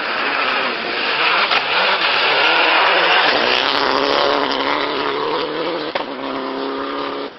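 Citroën DS3 rally car's engine at high revs as it drives by, building to its loudest about three seconds in, then running at steadier, lower revs.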